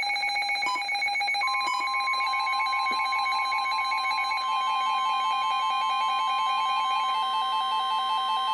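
Weather alert radios sounding their alarms together: rapid electronic beeping, joined about a second and a half in by a steady single-pitch tone like the NOAA Weather Radio warning alarm tone, sounding for a severe thunderstorm warning.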